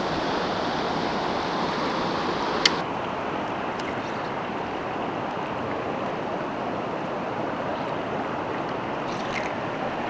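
Steady rushing of a fast, rocky stream at the foot of a waterfall. A single sharp click comes about a quarter of the way in, after which the rush is a little quieter.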